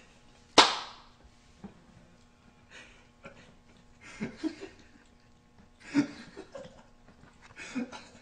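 Puppy eating soaked kibble and chicken from a metal bowl: wet chewing, smacking and snuffling in short bursts about four, six and nearly eight seconds in. A single sharp slap-like knock about half a second in is the loudest sound.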